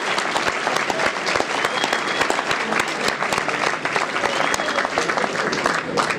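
Audience applauding: many hands clapping at once in a dense, steady patter.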